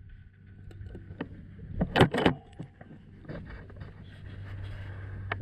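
Two loud sharp cracks about two seconds in, a quarter second apart, with lighter clicks scattered around them, over a steady low hum.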